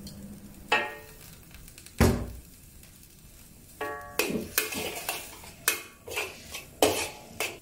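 Metal wok spatula knocking and scraping against a wok while stir-frying vegetables: a few single clanks, one with a short metallic ring, in the first half, then a run of quick scrapes and strikes from about four seconds in.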